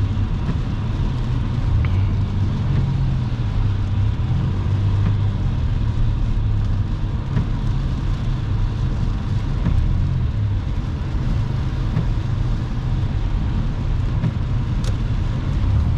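Steady low rumble of a car driving on a rain-soaked road, with an even wash of tyre and water noise.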